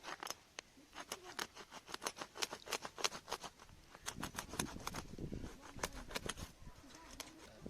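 Rapid, irregular snipping clicks, several a second, with a low rubbing noise about halfway through: fish being cut and cleaned.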